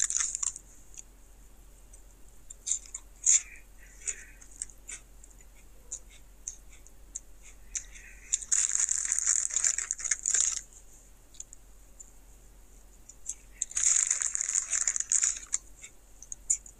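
Plastic snack bag of Doritos Dinamita Sticks crinkling as a hand rummages in it for a chip: two longer crinkling bursts, one a little past the middle and one near the end, with scattered small crackles and clicks between.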